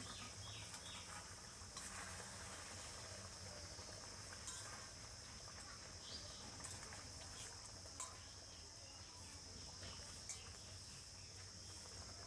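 Faint steady high-pitched insect trill, like crickets, with a few soft clicks of a spatula stirring a simmering curry in a metal kadai.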